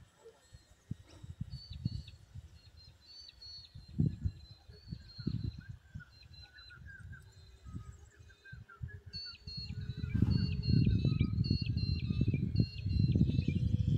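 Wind buffeting the microphone in irregular gusts, heavier in the last few seconds, with birds chirping in quick repeated phrases over it. A faint steady hum rises slightly in pitch in the second half.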